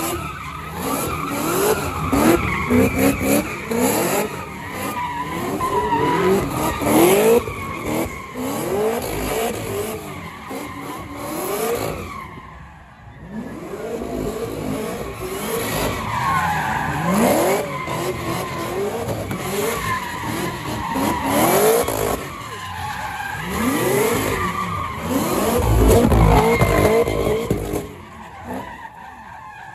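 Second-generation Cadillac CTS-V coupe's supercharged V8 revving hard in repeated rising sweeps while doing donuts, its tyres squealing and skidding on concrete. The noise drops away briefly about twelve seconds in.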